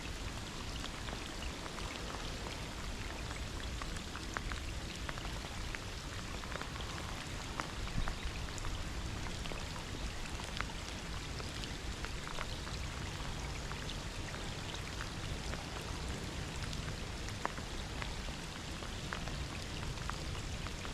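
Steady rain falling, with many individual raindrops ticking irregularly close to the microphone.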